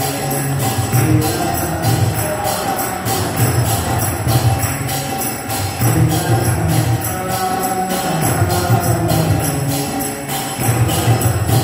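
Devotional kirtan music: hand cymbals (kartals) clashing in a steady, fast rhythm over group chanting that rises and falls in phrases.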